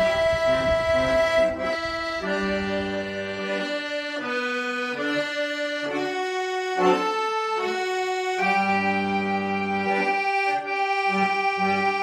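Accordion playing a melody over held chords, with short bass notes underneath.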